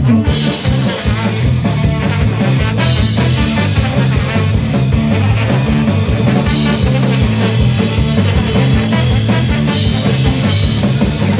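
Ska-punk band playing live, an instrumental stretch: a steady stepping bass line and drum kit under a horn section of trombone and saxophones, with electric guitar.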